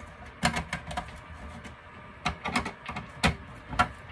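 Screwdriver clicking and tapping at the screw terminals of a Mean Well LRS-350 12 V power supply as the terminal screws are loosened. The light clicks are irregular, about eight of them, and the loudest comes about three seconds in.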